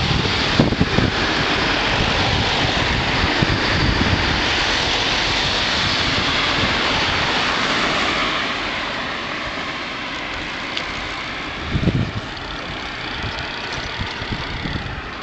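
Cars and a van passing close on the road, engine and tyre noise mixed with wind rushing over the microphone of a moving bicycle. The traffic noise eases off a little past halfway.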